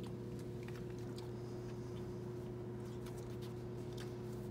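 Steady low machine hum, with a few faint scattered clicks.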